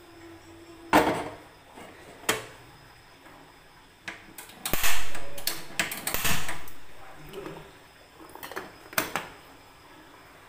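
Metal kettle, just filled with water, being set on a gas stove's burner grate to boil: scattered sharp clanks and knocks, with a louder cluster of clatters about five to six seconds in.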